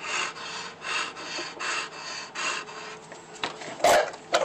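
English bulldog gnawing on the edge of a wooden door, his teeth rasping against the wood in repeated scraping strokes about twice a second. One louder, sharp sound comes near the end.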